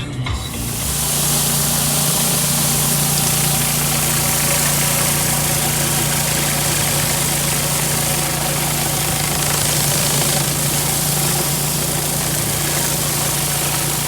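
Pressure washer's petrol engine running steadily at a constant speed, with a steady high hiss over it.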